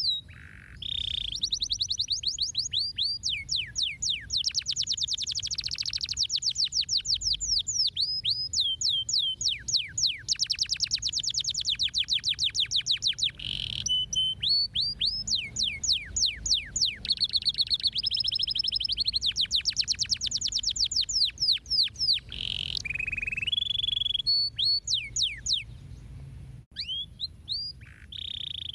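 Domestic canary singing a long song of fast trills made of rapid down-swept notes, with changes in the trill type and a few brief pauses, over a faint low hum.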